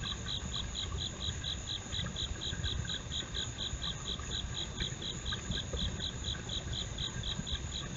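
Night insects calling: an even, high-pitched chirp about four times a second over a steady higher drone, with low background noise underneath.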